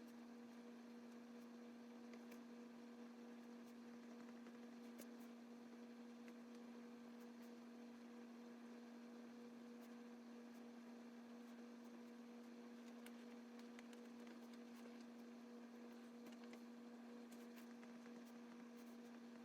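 Near silence with a faint, steady electrical hum, and scattered faint ticks.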